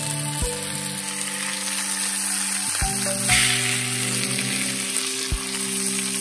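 Cutthroat trout fillet and morel mushrooms sizzling steadily in a cast iron skillet, the sizzle surging briefly about three seconds in. Background music of sustained low notes plays alongside.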